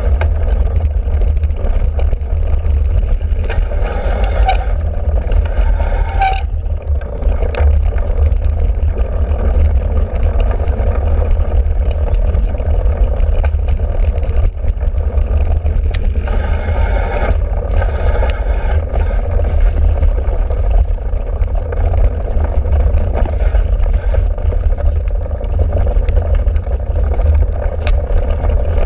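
Heavy wind rumble and buffeting on a handlebar-mounted camera on a cyclocross bike riding over bumpy grass and dirt, with many short knocks and rattles from the bike jolting over the ground.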